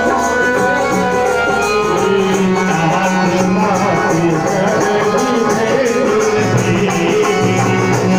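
Devotional kirtan: a harmonium's held chords under group singing, with small hand percussion keeping a steady beat.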